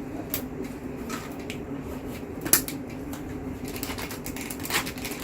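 Scattered light clicks and handling noise of computer hardware being fitted and handled, with one sharper click about two and a half seconds in and another near the end, over a steady low hum.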